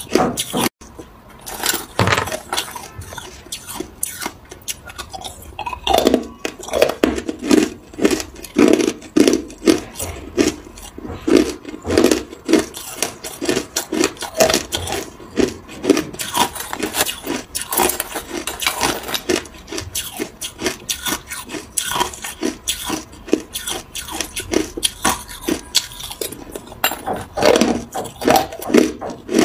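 Hard ice being crunched and chewed in the mouth close to the microphone: rapid, irregular crunches, the loudest bursts coming from about six seconds in.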